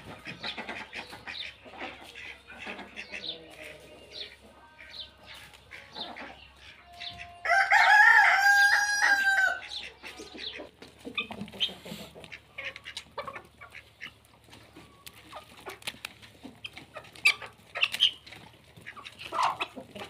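Chickens clucking on and off, with a rooster crowing once for about two seconds near the middle, much the loudest sound.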